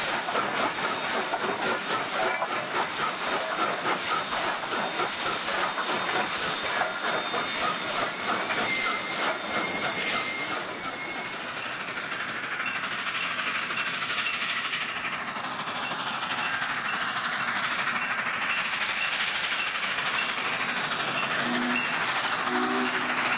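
Atlanta & West Point 4-6-2 Pacific steam locomotive No. 290 working past at close range: rapid rhythmic exhaust beats over steam hiss and wheel noise. About halfway through it is heard farther off and a little quieter, and its multi-tone steam whistle starts to blow near the end.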